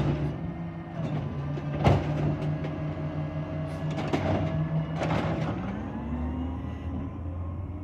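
Garbage truck engine running steadily, with a sharp knock at the start and another about two seconds in, and clattering bursts around four and five seconds in. Near the end the engine note rises and then settles into a lower rumble.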